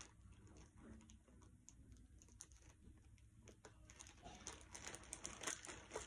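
Faint, scattered clicks and taps of small objects being handled on a tabletop, busier after about four seconds.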